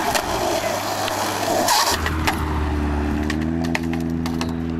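Skateboard wheels rolling on concrete, then a loud clatter about two seconds in as the board hits the stairs by the handrail and falls. After that a vehicle engine runs with a steady low hum, with a few light clicks over it.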